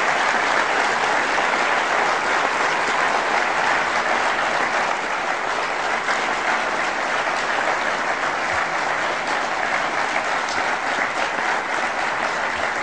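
Large audience applauding steadily, a dense clapping that eases slightly toward the end.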